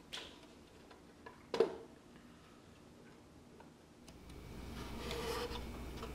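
A small light wooden box handled on a table: a small click at the start, then a sharp knock about a second and a half in, the loudest sound, as wood meets the tabletop. After about four seconds there are steadier rubbing and handling sounds of hands on the box over a low room hum.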